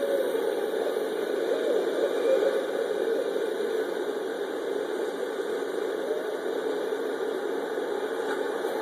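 A steady low rumbling noise, with faint wavering barred owl calls rising and falling over it a few times.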